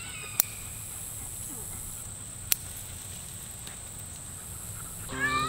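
Steady high-pitched drone of insects in a goldenrod field, with two sharp clicks, the first about half a second in and the second a couple of seconds later. Music comes in near the end.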